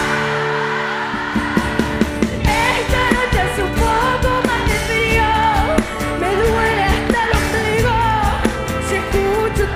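Live pop song played by a band, with a woman singing over drums. A held chord opens it, and the sung melody and drum beat come in about two and a half seconds in.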